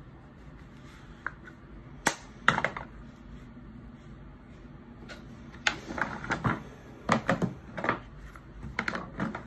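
Plastic makeup compacts and cases being handled and set down on a tabletop: a few sharp clicks about two seconds in, then a quicker run of small clicks and knocks in the last four seconds.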